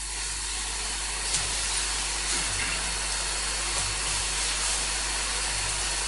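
Steady hiss of background noise with a low mains hum under it, the noise floor of the hall recording, broken only by a few faint ticks.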